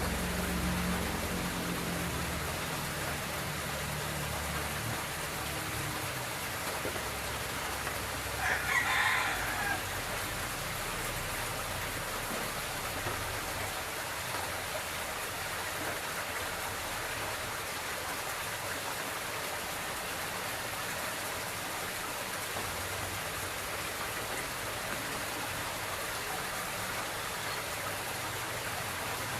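Steady hiss throughout, with a rooster crowing once, briefly, about nine seconds in.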